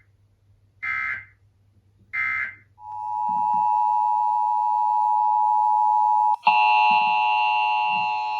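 Emergency Alert System end-of-message data bursts: two short, raspy bursts about a second apart, closing the test. A steady single alert tone then follows for about three and a half seconds and switches abruptly to a harsher chord of several steady tones.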